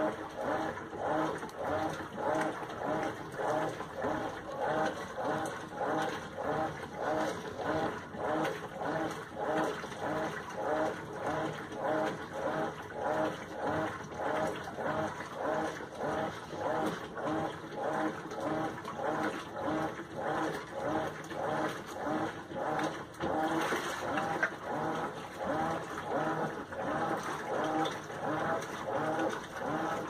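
Whirlpool Xpert System Smart Load top-load washing machine agitating a load in water: the agitator turns back and forth and churns the clothes, making an even rhythm of sloshing, swishing strokes.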